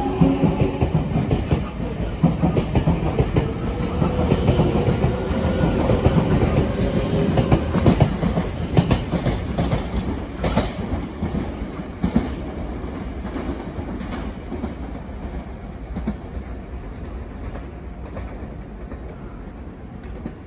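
Semboku Rapid Railway 5000 series electric train pulling away from the platform. Its traction motors whine, rising slowly in pitch as it speeds up, while the wheels clack over rail joints; the sound fades as the train draws away.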